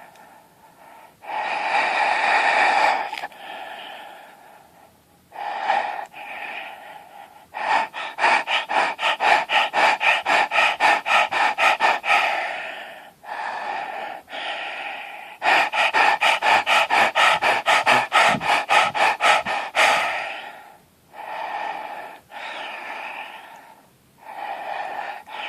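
A person breathing very deeply and loudly through a wide-open throat, each breath a rasping rush of air. Twice a longer breath breaks into a fast rattling pulse, about seven beats a second, before slower single breaths return.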